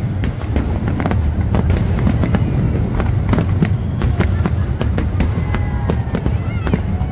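Fireworks display: a quick run of sharp bangs and crackles over a steady low rumble, with a few whistling tones near the end.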